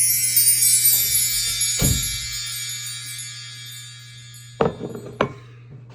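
A shimmering, bell-like music sting that fades away over about four seconds, with a dull thump about two seconds in and two sharp clicks near the end.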